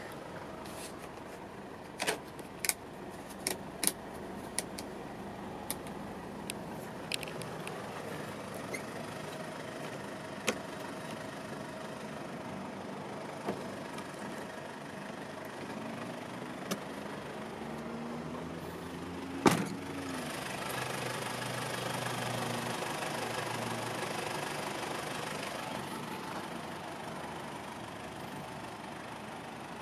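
Scattered sharp clicks and knocks of a Mitsubishi Pajero's plastic cargo-area trim and cover panels being handled, then one loud knock about two-thirds through. After it a low vehicle engine hum rises, holds for several seconds and fades.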